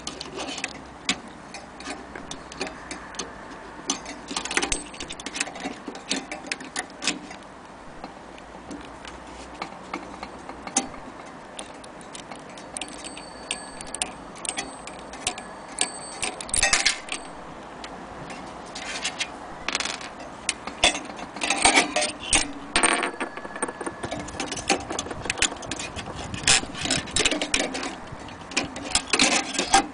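Antique mantel clock ticking as its pendulum swings, with louder, irregular clicks and knocks from the pendulum and movement being handled, mostly in the second half.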